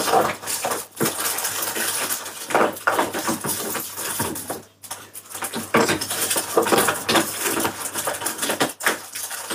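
Small hard objects clattering and clinking as they are rummaged through, in many irregular clicks and rattles with a short pause just before halfway.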